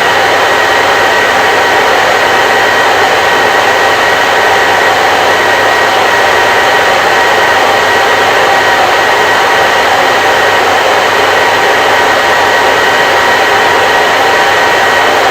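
Hair dryer running steadily: an even rush of air with a faint steady whine from the motor and fan.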